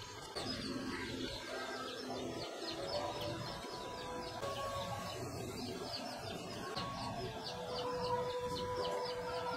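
Birds chirping in the background, a fast run of short high chirps, with chicken-like clucking.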